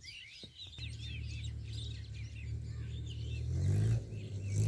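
Small birds chirping rapidly, many quick calls. From about a second in, a low engine hum comes in and grows louder, rising in pitch near the end.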